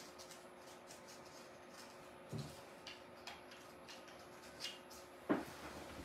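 Faint rustling and light clicks of hands handling paper and artificial greenery stems on a tabletop, with two soft thumps, the louder one about five seconds in.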